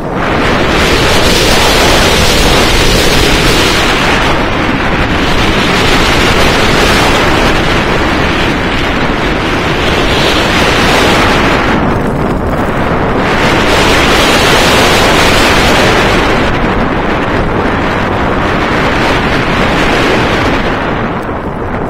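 Wind rushing hard over the microphone of a rider on a steel floorless roller coaster, mixed with the rumble of the train running on its track. The rush eases off for a moment a few times and drops away near the end as the train slows.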